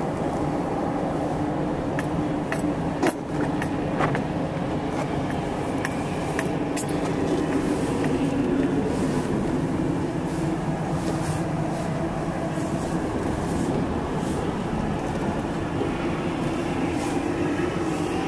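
Steady rumble of a vehicle being driven, heard from inside the cab, with a few sharp clicks and knocks in the first seven seconds.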